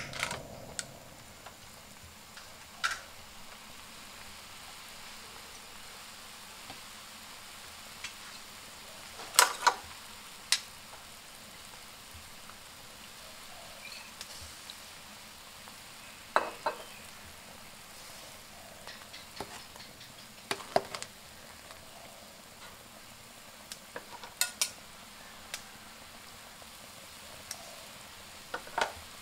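Tom yum soup boiling in an aluminium pot on a stove: a steady bubbling hiss, broken every few seconds by a sharp click or knock.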